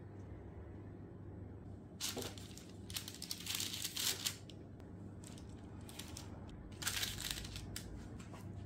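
Baking parchment on a metal tray crinkling in several short rustles as dough balls are set down on it, over a faint steady low hum.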